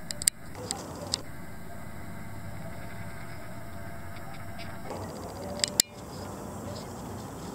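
Steady background hiss with a few sharp clicks near the start and a louder pair of clicks a little past five seconds in, from handling the camera.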